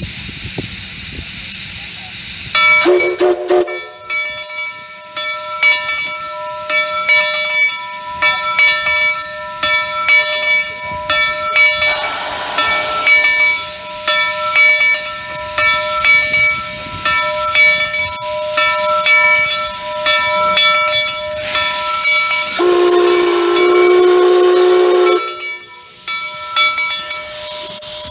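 Monson Railroad No. 3, a 1912 Vulcan two-foot gauge Forney steam locomotive, starting away with steam hissing from its open cylinder cocks. It gives a short whistle toot about two and a half seconds in. Its bell then rings steadily, and near the end it sounds one long whistle blast.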